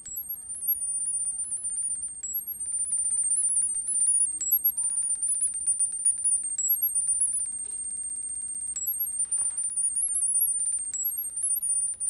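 High-pitched data tones from a smartphone speaker, hopping quickly between a few pitches, sending Wi-Fi network settings by sound to a YOKEE Domibot robot during pairing. One tone holds steady for about a second and a half past the middle before the hopping resumes.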